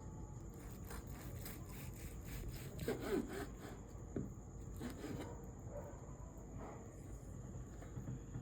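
Table knife sawing back and forth through a cooked steak: a series of soft scraping strokes, strongest about three seconds in.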